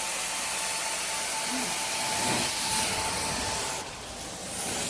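Carpet-cleaning equipment spraying: a steady hiss with a thin, steady whine underneath, which drops off about four seconds in.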